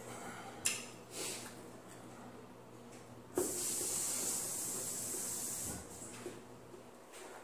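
A steady high hiss starts suddenly about three seconds in and lasts about two and a half seconds, after a couple of soft clicks.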